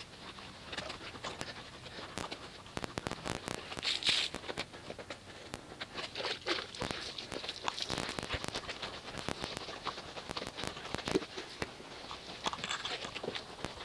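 Soapy wash mitt scrubbing over car paint: irregular wet swishing and crackling, with a louder swipe about four seconds in.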